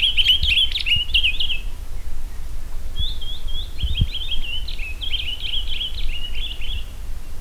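A small songbird sings two fast twittering phrases of quick falling notes. The first ends within the first two seconds; the second starts about three seconds in and runs for nearly four seconds. A steady low rumble lies underneath.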